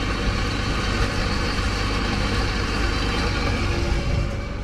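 Water pump running steadily with a low mechanical hum, drawing lake water up through large flanged intake pipes.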